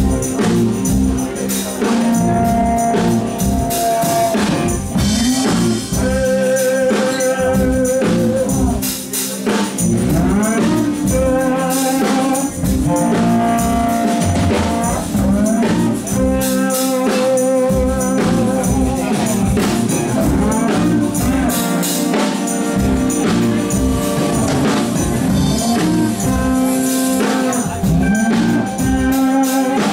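A live band playing a song, with drums and hand percussion keeping a steady beat under bass, electric guitars, keyboards and saxophones holding long, wavering melody notes.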